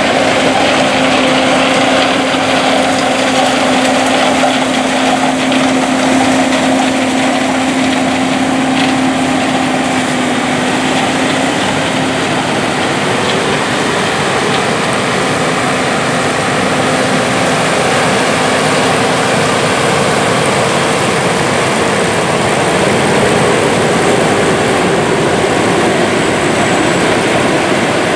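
Lexion combines running in the field while harvesting corn: a steady, loud engine and machinery drone, with a steady hum that fades out about halfway through.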